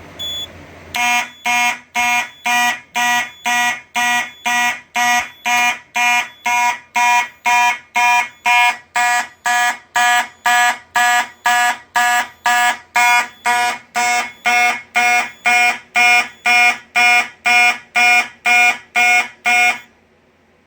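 Simplex 2901-9838 fire alarm horn sounding in march-time code, about two blasts a second, set off again by a smoke detector going into alarm. It cuts off suddenly shortly before the end, when the audible signals are silenced.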